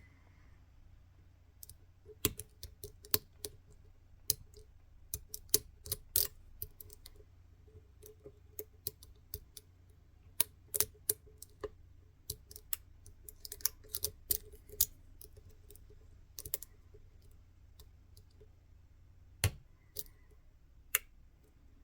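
Steel lock pick and tension wrench working the pins of an Assa 600 cylinder: irregular small metallic clicks and ticks as the pins are pushed and set, picking toward a full set.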